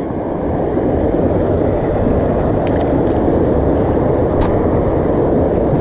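Steady, loud rushing of creek water pouring over a low concrete spillway.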